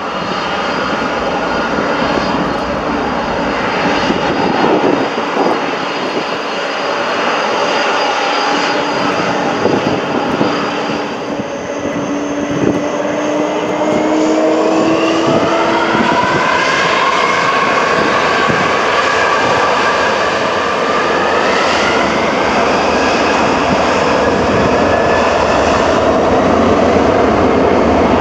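McDonnell Douglas MD-11F freighter's three jet engines running at low power, then spooling up for takeoff from about halfway through: whining tones rise in pitch and the engine noise grows steadily louder as the aircraft starts its takeoff roll.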